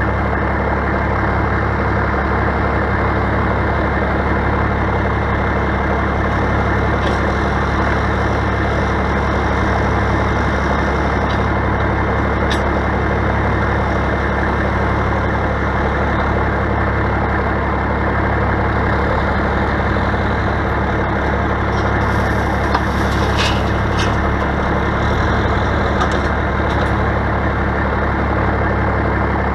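Straight-piped Caterpillar 3406 diesel of an International dump truck idling steadily, with a few faint clicks over it.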